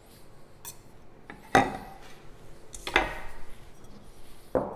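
Kitchen knife and scallop pieces knocking and clinking against a slate board and a small ceramic bowl as scallops are cut and gathered: a few sharp knocks with a short ring, the loudest about a second and a half in.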